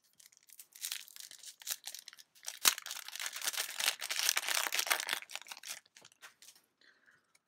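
Yu-Gi-Oh! booster pack's foil wrapper being torn open and crinkled: a dense crackling rustle with one sharp snap a little before the middle. The crackling is heaviest for the next three seconds, then dies away.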